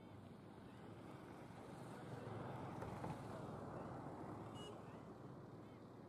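Distant passing vehicle: a low rushing noise that swells to a peak midway and fades again, with a single faint high chirp near the end.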